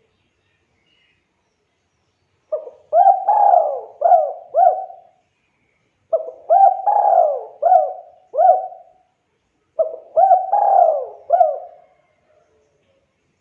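Spotted dove (tekukur) singing: three cooing phrases a few seconds apart, each a run of four or five low, hooked coos.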